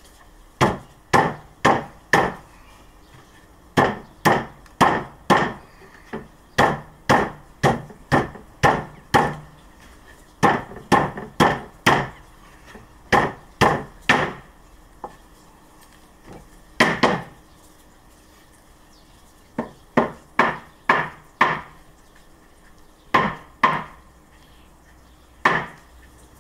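Cloth-covered rubber mallet knocking interlocking beech-plywood hive panels together, in runs of sharp knocks about two a second with short pauses between. The knocks seat the panel's tabs in their slots until the joint is flush.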